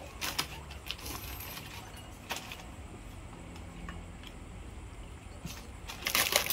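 Spoons and chopsticks clinking against ceramic bowls during a meal, a few separate light clicks over a low steady hum. A louder burst of noise about six seconds in.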